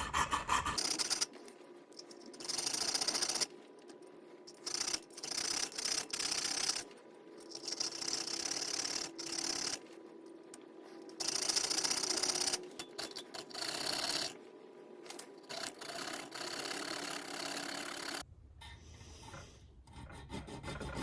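Hand file rasping across the soft, unhardened steel of a new multitool knife blade, in repeated passes of a second or two with short breaks between them.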